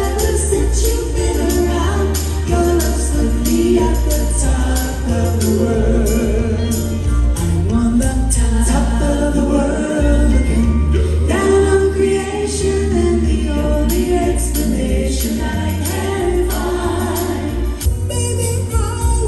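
Live vocal group singing an upbeat pop song over a backing track with a heavy bass and a steady beat.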